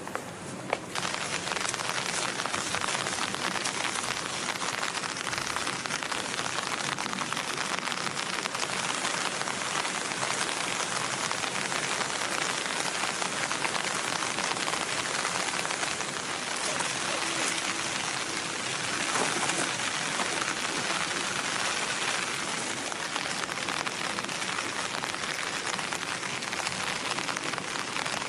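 A sharp knock right at the start, then steady rain falling: a dense, even hiss that sets in abruptly about a second in and holds without change.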